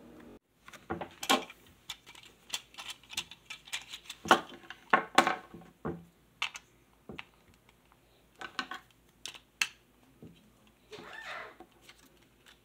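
Hard plastic toy pieces of a pirate ship toy clicking and clacking as they are handled and set down: an irregular run of short, sharp clicks and knocks.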